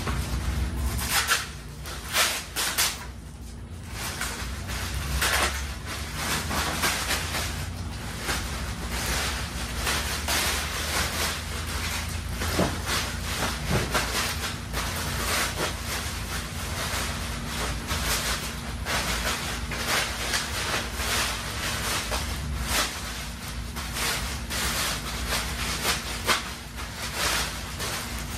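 Plastic packaging rustling and crinkling in irregular bursts as a rubber bumper filler is pulled out of its bag and handled, with a low rumble underneath.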